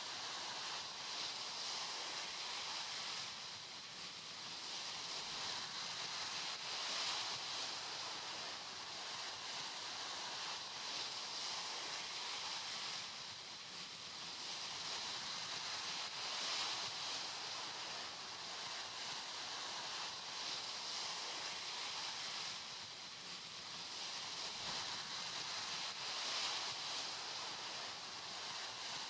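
Small sea waves breaking and washing up a sandy beach: a steady hiss of surf that swells and eases every few seconds.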